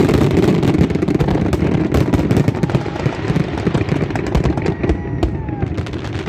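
Fireworks display: a dense, continuous barrage of crackling bursts and booms over a steady rumble, with a few faint whistles gliding down in pitch.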